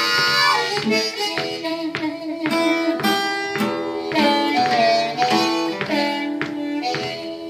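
Blues harmonica playing a lead line over a strummed acoustic guitar, with a bent note near the middle.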